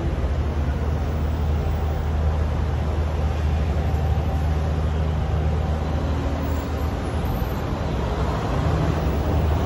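City street traffic noise: a steady low rumble of passing vehicles, with no single event standing out.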